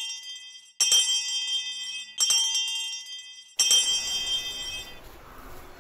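A bright, jingling bell chime struck three times about a second and a half apart, each ringing down over silence. After the third strike, faint steady background noise takes over.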